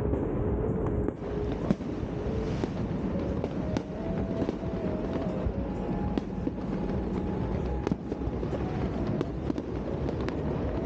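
Fireworks going off: a rapid run of bangs and crackles over a low rumble, with a simple melody of held notes playing underneath.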